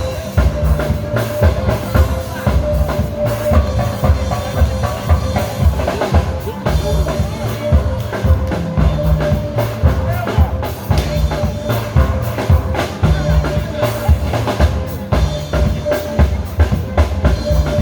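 Steel band playing, steel pans over a drum kit with a steady, regular beat.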